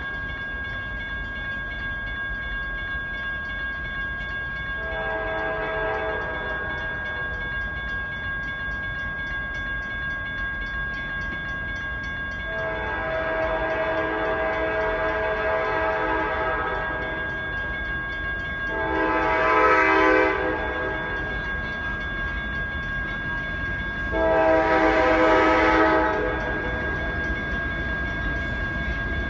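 Air horn of the lead CSX GE locomotive, a CW44AC, sounding four blasts as the empty coal train approaches. The first is about two seconds, the second about four seconds, and the last two about two seconds each, growing louder as the train nears, over a low steady rumble.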